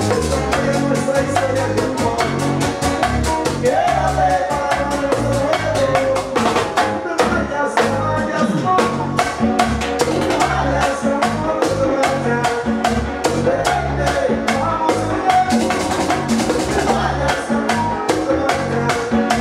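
Live Latin band playing: quick, steady percussion ticks over a pulsing bass, with a man singing over it.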